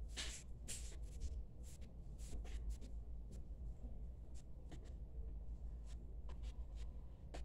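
A spoon scraping and tapping inside a plastic tub of whipped topping: a quick run of short scratchy strokes in the first three seconds, then a few scattered ones, over a low steady hum.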